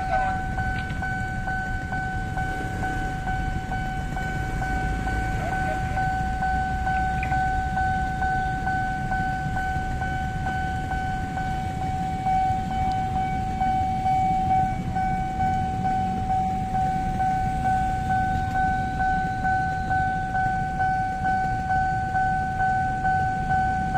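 Railway level-crossing warning alarm sounding a continuous electronic tone, over the low rumble of waiting motorcycles and a bus idling at the lowered barriers.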